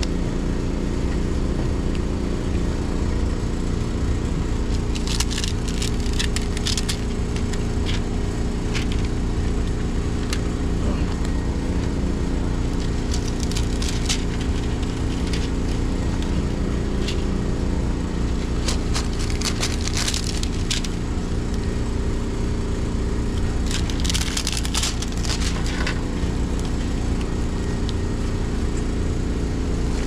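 Steady drone and low hum of boiler-room machinery, overlaid by four short spells of crackling and crinkling as rubberized repair tape is handled and pressed over a leaking pipe.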